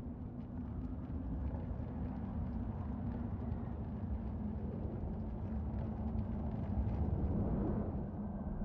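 Low, steady rumbling of a film soundtrack's disaster sound design over a burning, ruined city, growing slightly louder toward the end.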